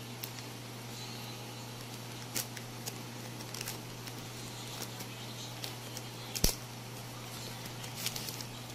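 Thin frosted plastic wrapping being handled and unfolded by hand: scattered soft crinkles and small ticks, with one sharper click about six and a half seconds in.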